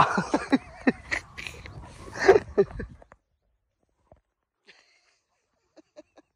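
Scuffling play with a Great Dane puppy: phone handling bumps and rustles, breathy grunts and the puppy's mouthing and nipping, for about three seconds. Then the sound drops almost to silence, with a few faint clicks near the end.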